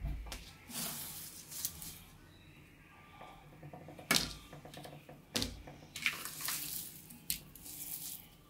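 A hand poking, scooping and squeezing crushed Orbeez water-bead gel and broken clear plastic shells on a plastic tray: a string of short, wet, crackling handling noises with several sharp clicks.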